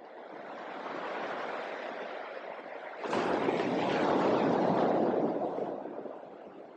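Ocean surf rushing on a beach. It grows louder about three seconds in and fades toward the end.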